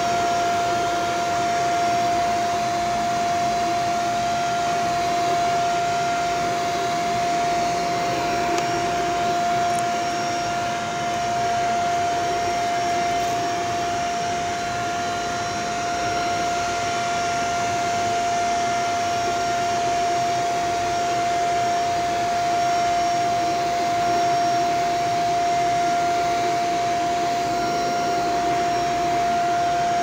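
Shark upright vacuum cleaner running steadily while being pushed over carpet. Its motor makes a constant whine over the rush of airflow.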